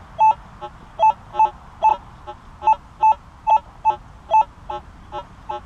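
Minelab CTX 3030 metal detector sounding short target tones, about two or three a second, as the coil is swung back and forth over a target; the last few beeps are fainter.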